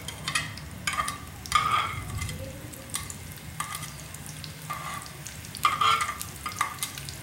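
Sliced onions sizzling in hot oil on a flat tawa griddle, while a metal slotted spatula scrapes them off an enamel plate with repeated short scrapes and clinks.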